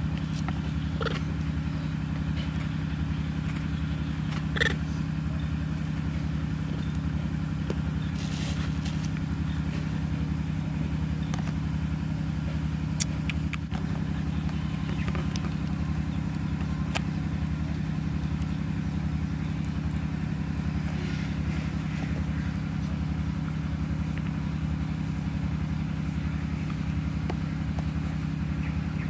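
Steady low mechanical hum, like a motor or engine running without a break, with a faint regular throb; a few brief faint squeaks and clicks sound over it.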